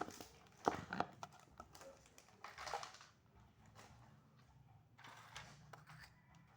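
Clicks and knocks of electric fan parts being handled and taken apart, with a few sharp knocks in the first second and scraping rustles around the middle and again near the end, over a faint steady hum.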